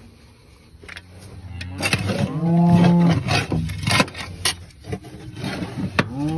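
A cow mooing twice, a long call about two seconds in and another starting near the end. Between the calls come short scrapes and knocks of caked feed being scraped out of a metal feeder.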